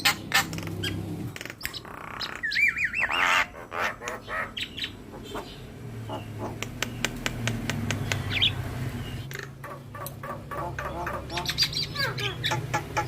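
Javan myna singing: rapid sharp clicks and harsh squawks, with a wavering, warbled whistle about two and a half seconds in.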